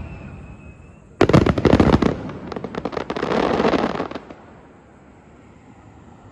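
Aerial fireworks: a falling whistle fades out in the first second, then a loud burst about a second in, followed by a rapid string of sharp cracks and a dense crackle that dies away after about four seconds.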